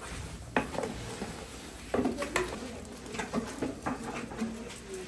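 Irregular knocks and scrapes of cooking utensils against large pots and tubs: a wooden paddle and a metal ladle in a big aluminium cooking pot, then sauce being scooped and tipped in a plastic basin.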